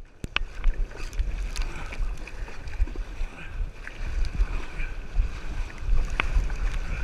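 Kayak paddling on choppy sea: water splashing from paddle strokes and the hull, with scattered sharp splashes and knocks. Wind buffets the camera microphone in gusts with a low rumble.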